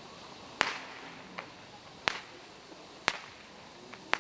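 Sharp firework pops, one about every second, three loud and one faint, over a faint steady hiss.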